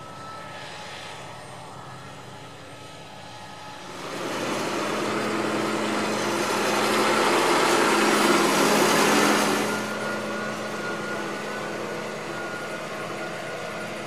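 Tractor diesel engine running steadily under field work, growing louder about four seconds in, loudest around the middle as the tractor passes close, and easing off again about ten seconds in.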